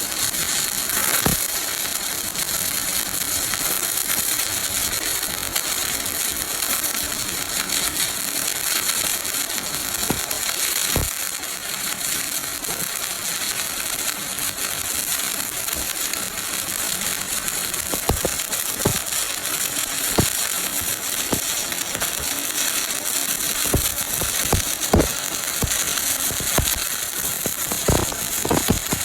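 Stick-welding arc on a 7016 electrode, crackling and hissing steadily, with scattered sharp pops that come more often in the second half.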